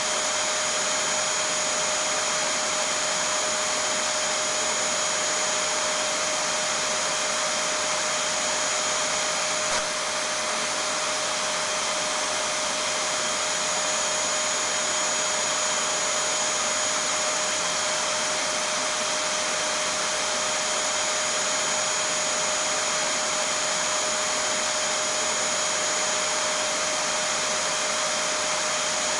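Vacuum cleaner running steadily: an even whooshing hiss with a constant mid-pitched hum and a thin high whine, unchanging throughout, with one tiny tick about ten seconds in.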